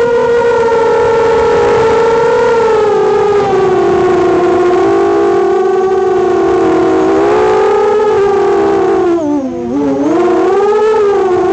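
Four Emax RS2205 brushless motors of a QAV210 FPV racing quadcopter on a 3S battery, whining steadily as heard from the onboard camera, the pitch wandering up and down with the throttle. About nine seconds in, the whine drops sharply in pitch and loudness as the throttle is chopped, then climbs back up.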